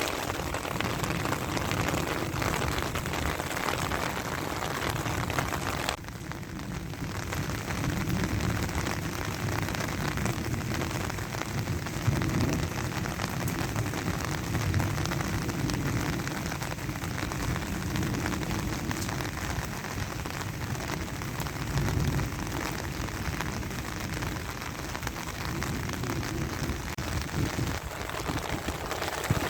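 Heavy rain falling steadily, an even hiss of rain with a brief dip about six seconds in.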